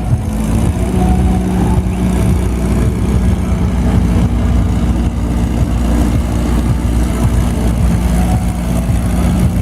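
Vehicle engine running steadily at a low, even pitch, like idling, with no revving climbs.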